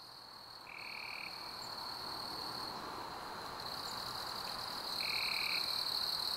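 Evening chorus of frogs calling, with crickets trilling steadily in a high, even tone. Two short, higher calls stand out, one about a second in and one near the end.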